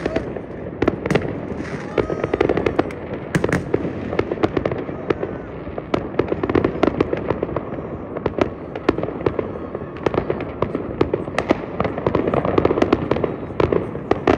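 New Year's fireworks and firecrackers going off all around in a dense, irregular stream of bangs and crackles that never lets up.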